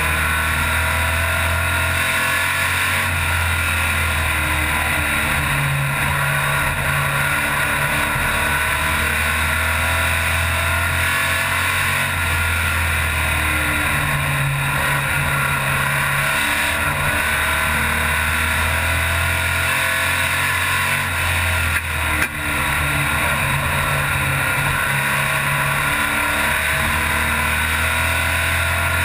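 Stock car's racing engine heard from inside the cockpit at racing speed, its note rising and falling again and again, with a steady rushing noise over it.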